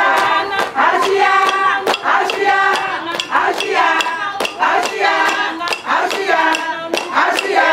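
Singing voices over a sharp, regular beat of claps or hand percussion, about two beats a second.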